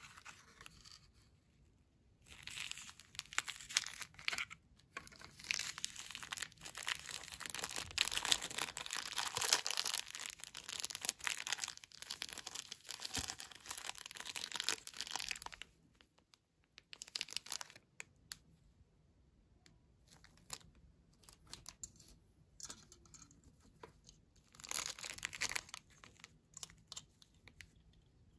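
Paper wrapper and clear plastic bag of a small blind-pack toy being torn open and crinkled by hand. The tearing and crinkling is loudest and most continuous for the first half, then turns into quieter, scattered rustles with one more burst near the end.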